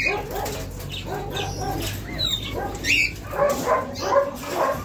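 Dogs yipping and whimpering in short, repeated calls, with a few high chirps from caged birds.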